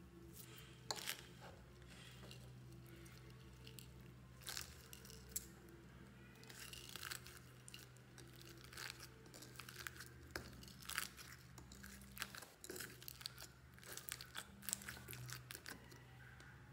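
Slime packed with foam beads being squished and kneaded by hand in a glass bowl: irregular sticky crackles, pops and crunches as the beads and slime are squeezed, coming more often in the second half.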